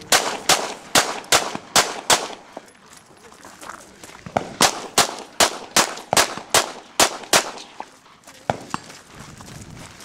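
Gunshots from a competitor's firearm on a 3-gun match stage: two quick strings of shots, about six, then after a pause of about two seconds about nine more, spaced a little under half a second apart.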